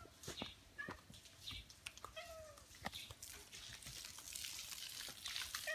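Ginger tabby cat giving several short greeting meows, spaced a second or more apart, with faint clicks between them.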